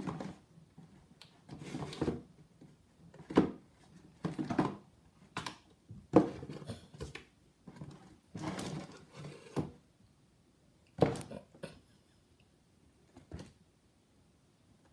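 Kittens scrambling on and around a cardboard shoebox: irregular thumps and knocks of paws landing on the box, with scratching and scraping on the cardboard, coming in clusters with short pauses. Sparser toward the end, with a single knock about a second and a half before it ends.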